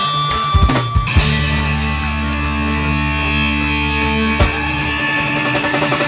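Live folk-punk band playing loud on stage: a few drum hits about a second in, then a long, ringing held chord from guitars and fiddle, with another hit and a new held chord a little past four seconds.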